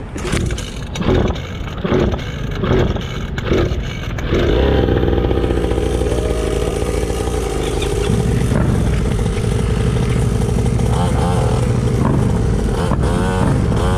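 Small two-stroke engine of a cheap mini dirt bike being cranked about five times, catching about four seconds in, then running steadily and revved a few times near the end.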